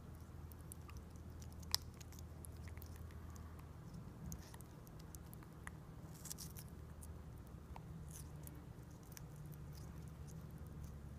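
African grey parrot biting and chewing a strawberry held in its foot: faint, irregular small clicks of the beak, with one sharper click about two seconds in, over a low steady hum.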